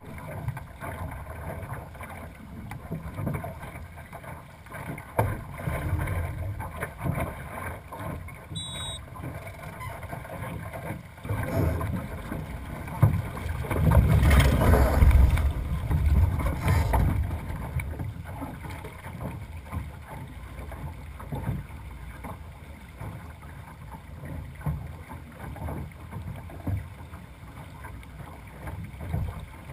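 Sailing dinghy under way: wind buffeting the microphone as a low rumble, with water rushing along the hull. The rush of water swells louder about halfway through as the boat heels and throws spray, then settles back.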